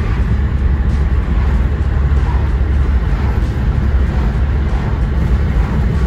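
Steady low rumble of a car driving on a highway, heard inside the cabin: road and tyre noise with the engine underneath.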